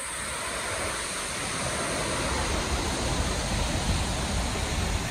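Steady rushing roar of Niagara Falls' falling water, a loud even noise that grows slightly louder after about a second.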